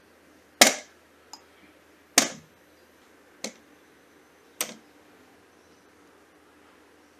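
Whole green plums dropped one at a time into glass tumblers, each landing with a sharp clink on the glass: four clinks a little over a second apart, with a lighter tick after the first.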